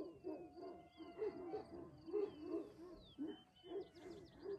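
Dawn chorus: birds chirping, with quick down-sweeping whistles and a thin high trill, over a continuous run of low, repeated hooting calls, several a second.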